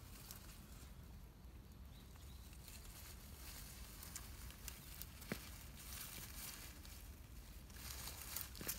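Faint outdoor background hiss with scattered light rustles and clicks, a sharper click about five seconds in and a few more near the end.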